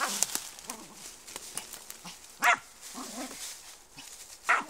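Dog barking: two short, loud barks about two and a half and four and a half seconds in, with a crackle of dry leaves near the start.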